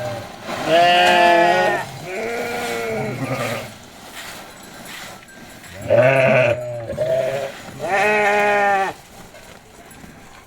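Sheep bleating: several separate calls, most about a second long, at uneven intervals.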